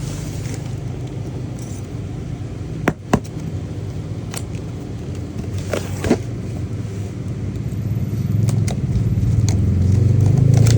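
A steady low engine rumble that grows louder near the end, with several sharp clicks or taps over it.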